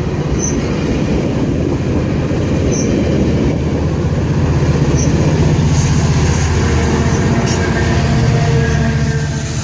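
GO Transit MP40PH-3C diesel locomotive pulling a train out of the station, its engine running under power with a steady low rumble as the train rolls.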